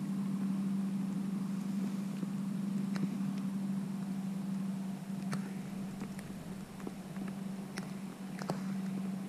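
A snook and a topwater lure knocking and clicking now and then against a plastic kayak hull while the fish is unhooked, over a steady low hum.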